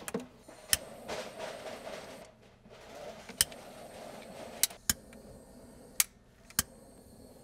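Small handheld butane torch hissing as its flame shrinks heat-shrink tubing over a nicked power wire, with several sharp clicks scattered through.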